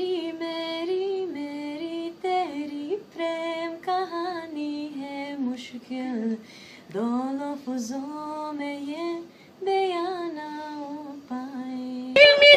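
A young woman singing a Hindi song solo and unaccompanied, a slow melody of held notes and sliding pitch with two short breaths between phrases. A louder voice cuts in just before the end.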